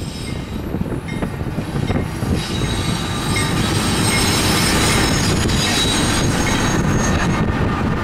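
Freight train behind BNSF diesel locomotives rolling along the rails with a steady low rumble. Thin high wheel squeal rises over it from about two seconds in and fades near the end.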